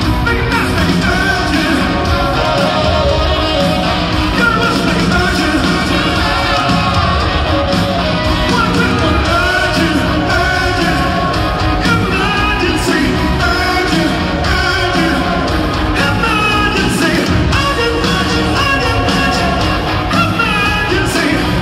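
Live rock band playing at full volume: drums, electric guitars and bass, with a lead singer's vocals over them, recorded from the audience in an arena.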